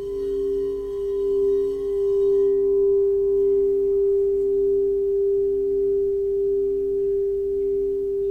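Singing bowl sustaining a steady, pure tone with a slow, regular wavering pulse. Its faint high overtones fade out about two and a half seconds in.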